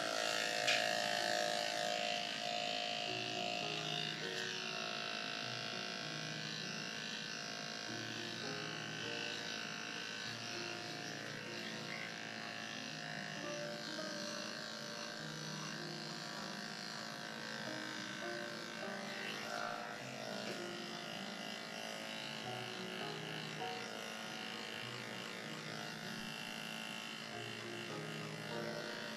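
Corded electric dog-grooming clippers running with a steady hum as they shave a heavily matted coat close to the skin.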